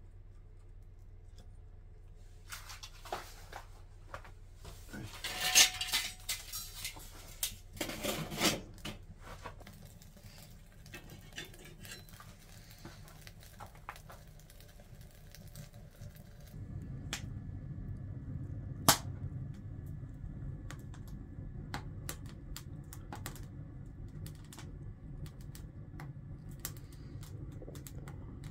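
Cast-iron lid rings of a small wood cookstove clattering as they are set in place over the firebox, loudest about five and a half and eight seconds in. Later, a low steady rumble with scattered sharp snaps as the newly lit kindling burns.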